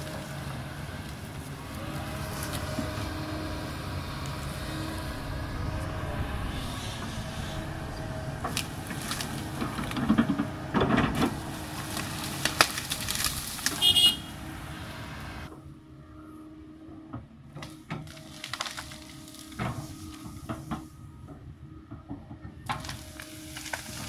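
Kobelco 220 excavator's diesel engine running steadily under load as the bucket digs into the hillside. Between about nine and fourteen seconds in, soil and rocks clatter and scrape against the steel bucket, ending with a brief high metallic squeal. About fifteen seconds in, the sound drops to a fainter engine hum with scattered knocks of falling earth.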